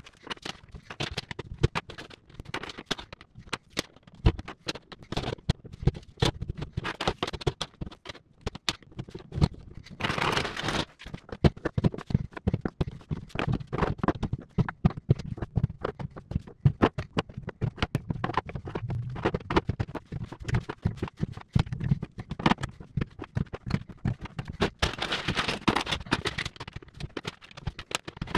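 Cylindrical LiFePO4 battery cells and plastic cell-holder brackets being handled on a table: a dense, irregular run of clicks and knocks as cells are pushed into the holders and set down. Two short stretches of rougher scraping come about ten seconds in and near the end.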